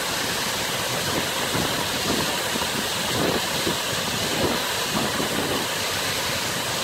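Man-made waterfalls pouring over rocks into a pond: a steady, even rush of falling water.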